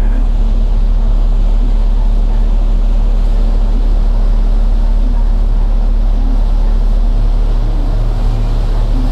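Sakurajima ferry's engines heard on board, a loud steady drone with a deep hum and a constant low tone.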